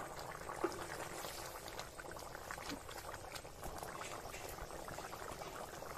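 Thick chicken curry with potatoes boiling in an open metal pot, a steady simmer of many small popping bubbles, with one sharper pop a little over half a second in.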